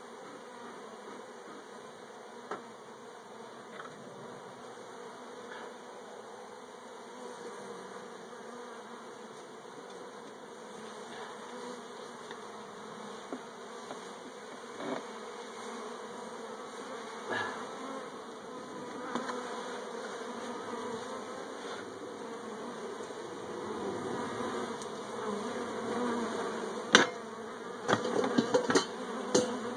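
Swarm of honeybees buzzing around opened hive comb, a steady hum that grows a little louder in the second half. A few sharp knocks near the end.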